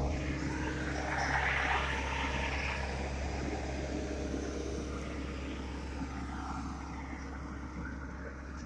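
Diesel engine of a Dynapac plain single-drum roller running steadily with a low drone, drum vibration switched off. It grows a little fainter toward the end.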